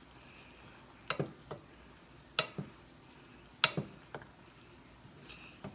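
A utensil clicking against a pan while instant noodles are stirred together with a thick sauce. The clicks come in small clusters of two or three, about once every second and a bit.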